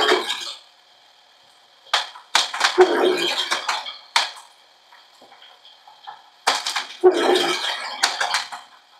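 TOMY Galaxy Pinball electronic toy pinball game in play: bursts of plastic clattering and sharp flipper clicks, each a second or two long, with short quiet gaps between them.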